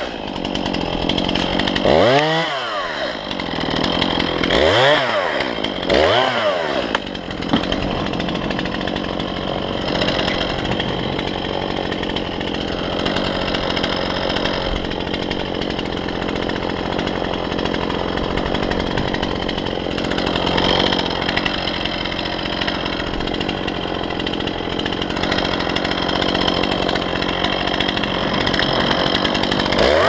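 Chainsaw revved up and down three times in the first few seconds, then running steadily under load as it cuts through wood.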